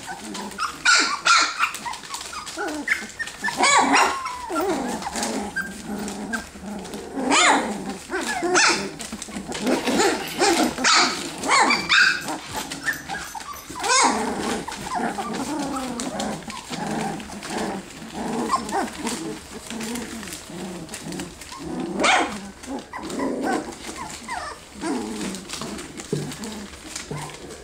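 A litter of three-week-old standard goldendoodle puppies making a busy run of short, high yips, small barks and whimpers, with some play growling as they tussle.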